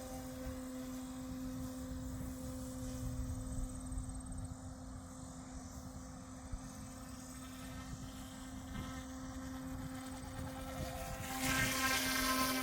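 Small battery-powered Goosky S1 RC helicopter hovering, its rotors and motors giving a steady, even-pitched whine. Near the end it grows louder, with a rushing hiss added.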